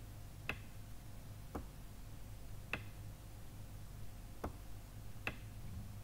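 Faint, sharp ticks, about one a second at slightly uneven intervals, over a steady low hum.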